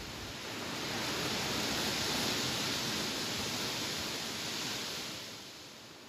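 Wind gust rustling through tall grass, a soft hiss of blades brushing together that swells about a second in and eases off near the end.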